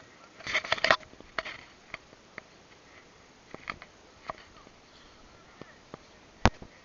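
Airsoft guns firing: a quick burst of sharp snaps about half a second in, scattered single shots after, and one loud crack near the end.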